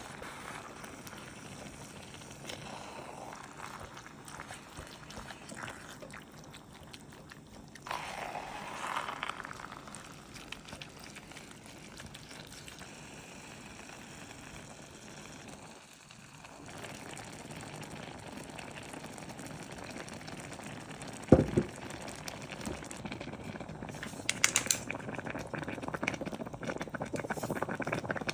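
Kitchen cooking sounds: utensils and cookware being handled, with one sharp knock about two-thirds in and a few clinks after it.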